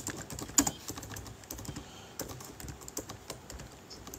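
Computer keyboard being typed on: quick, irregular key clicks, with one louder click about half a second in.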